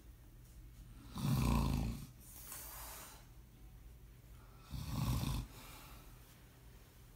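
A man snoring loudly in his sleep: two loud snores about three and a half seconds apart, each followed by a quieter breath.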